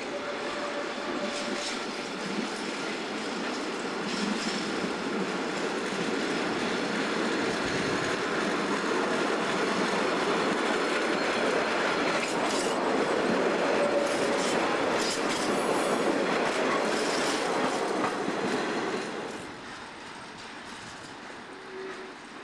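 Uncoupled flat freight wagons rolling down a shunting hump, wheels rumbling and clacking over rail joints and points, with brief squeals. The noise builds as the wagons pass close, with a run of sharp clicks and squeals at its loudest, then falls away sharply about 19 seconds in.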